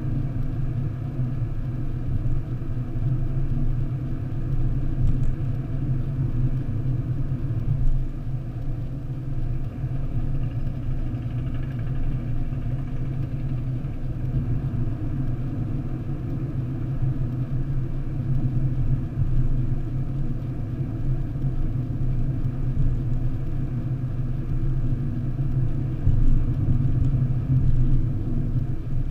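Steady low rumble of tyre and engine noise inside a car cruising at motorway speed.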